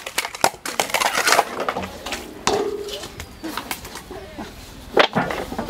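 Scattered knocks and clatter of objects being handled, thickest in the first second and a half. A brief voice-like sound comes in the middle, and a single sharp knock about five seconds in.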